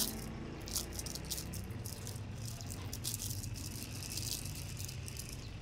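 A small clear plastic bag of cookies crinkling as hands handle and open it, in many quick, irregular crackles.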